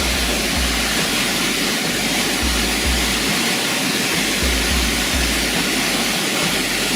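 Waterfall rushing steadily, with a deep low rumble that comes and goes underneath.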